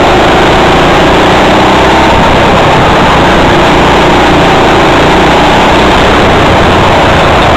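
Go-kart engine running loud and steady, heard from onboard the kart.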